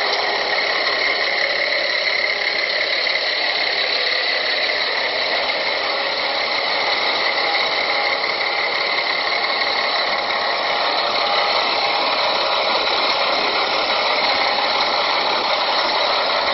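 Murky runoff water rushing and splashing steadily along a shallow channel, a continuous hiss.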